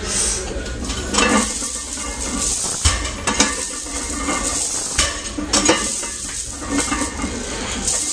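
40 lb lifting chains hung on a loaded barbell clinking and rattling through repeated fast deadlift reps, with the plates knocking down on the rubber pads between pulls.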